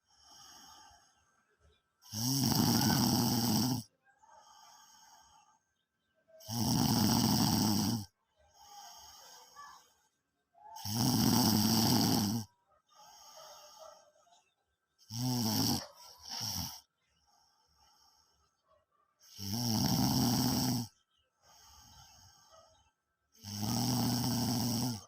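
Heavy snoring from a sleeper worn out by long exercise. Six loud snores come about every four seconds, with quieter breaths between them; the fourth snore breaks in two partway through.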